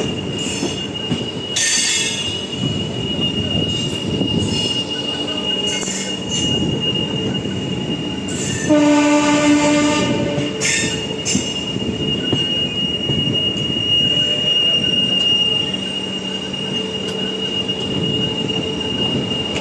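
Passenger train running on the rails with a steady high-pitched wheel squeal throughout and occasional clatter. About nine seconds in, a train horn sounds for roughly two seconds.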